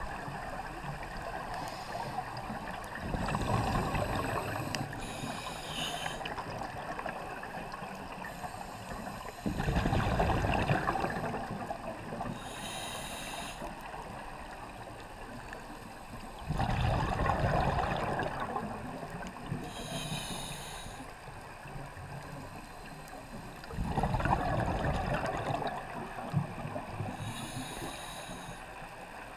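Scuba diver breathing through a regulator underwater: four exhalations, each a loud burst of bubbles lasting about two seconds, each followed a second or two later by a shorter, high hiss of an inhalation, about one breath every seven seconds.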